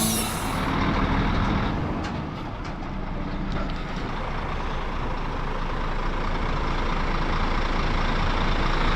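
Timber delivery truck's engine running steadily.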